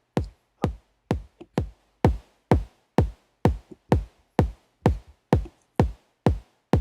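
Electronic kick drum loop playing through a compressor plugin, a steady beat of about two hits a second, each with a low thump dropping in pitch and a sharp click on top. A few softer hits fall between the beats.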